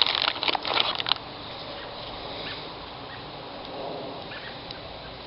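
Crackling rustle of a self-adhesive neoprene strip being handled and its backing peeled, for about the first second, then only a faint steady hiss with a few light ticks.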